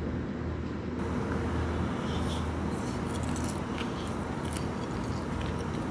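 Crisp fried fuchka (puchka) shell crunching as it is bitten into and chewed, with sharp crackles starting about two seconds in, over a steady low hum.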